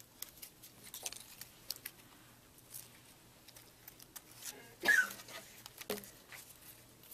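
Scissors snipping through paper strips, with paper rustling as it is handled: a scattering of short, quiet snips and scratches, and one louder, brief sound about five seconds in.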